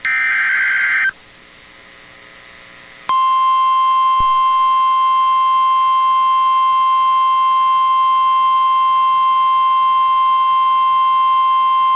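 The last burst of an EAS SAME header, a buzzy digital data screech about a second long. After a pause of about two seconds comes the steady NOAA Weather Radio 1050 Hz warning alarm tone, held for about nine seconds before it cuts off sharply. It announces that a National Weather Service severe thunderstorm warning is about to be read.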